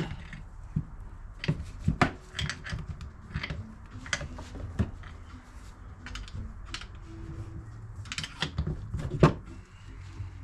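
Irregular light clicks and knocks of metal parts and hand tools being handled on a workbench while an engine mount is taken apart, with a few sharper knocks.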